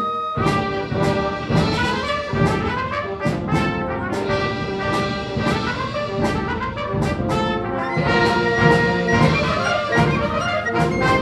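Concert band playing at full strength, brass to the fore over woodwinds and a steady percussion beat; the full ensemble comes in a moment after the start.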